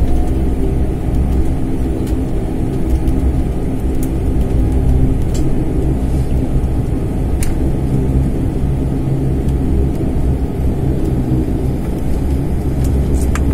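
Turboprop airliner's engine and propeller droning steadily, heard inside the passenger cabin: a loud low hum with several steady tones over it.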